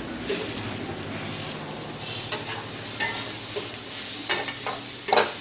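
Chopped vegetables (banana stem, potato, drumsticks, brinjal) sizzling in hot oil in a metal karahi while a flat spatula stirs them. From about two seconds in, the spatula scrapes and knocks against the pan several times.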